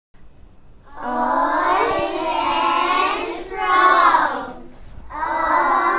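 Children singing together with a woman leading them, a classroom song. The singing starts about a second in, breaks briefly just before the five-second mark, then goes on.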